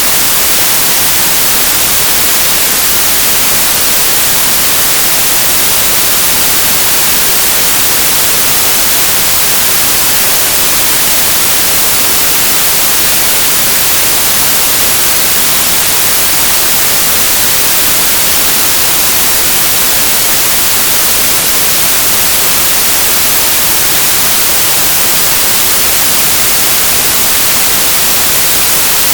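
Loud, steady static hiss, like white noise, strongest in the high pitches and unchanging throughout, with no other sound standing out.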